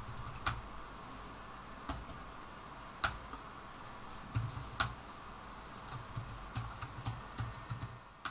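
Keystrokes on a computer keyboard: scattered single clicks about a second apart, coming closer together near the end.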